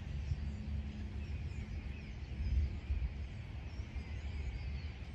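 Small birds chirping, many short calls scattered throughout, over a steady low rumble.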